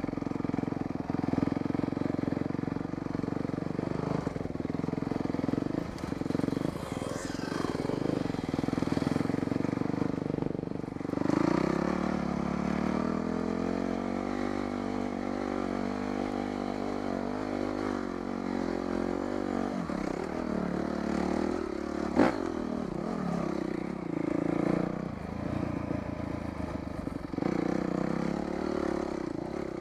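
Dirt bike engine running as the bike is ridden along a rough trail, revs rising and falling with the throttle and holding steadier from about twelve to twenty seconds in. A single sharp knock comes about twenty-two seconds in.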